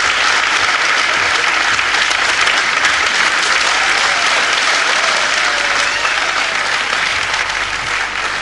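Large studio audience applauding steadily, a dense clapping that holds through the whole stretch.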